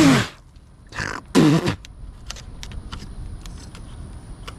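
A man's breath followed by a short grunt about a second and a half in, then a run of light, scattered clicks and taps from parts and hoses being handled.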